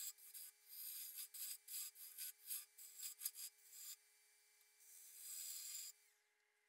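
Turning tool cutting the end grain of a spinning cherry bowl on a lathe: a quick series of short hissing, scraping cuts, then one longer cut about five seconds in, stopping near the end.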